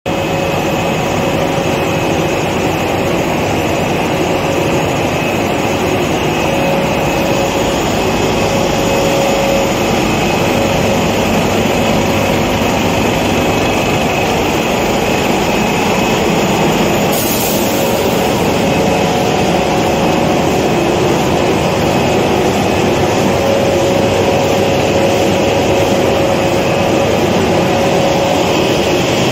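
SCA4-2 A4 paper sheet cutting and packing machine running, a steady loud mechanical drone with a constant hum-like tone. A brief hiss comes a little past halfway.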